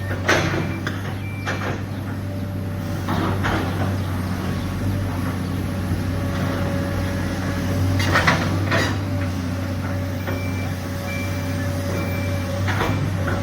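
Diesel engine of an excavator loading coal into trucks, running steadily. Several loud crashing clanks come through it, and a few short high beeps.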